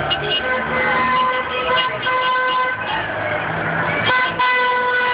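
Vehicle horns honking: about four long, steady blasts in a row, each lasting around a second, over street traffic.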